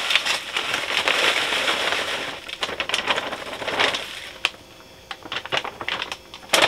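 Potting mix pouring out of an upended plastic bag into a pot, a dense gritty hiss with the bag crinkling. After about four seconds the pouring stops, leaving only scattered crinkles and light taps.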